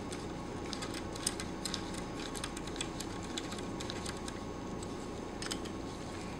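Light, irregular clicks and taps of small metal parts being handled on the reassembled piston head of a vacuum pump, as its bolts are set in and started by hand. A steady low hum sits underneath.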